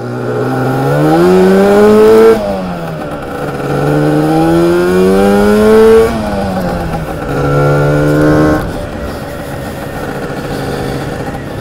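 Lambretta TargaTwin 275cc twin-cylinder two-stroke scooter engine under way and accelerating. Its note climbs in pitch and drops abruptly twice, holds briefly, then settles to a lower, steadier running note.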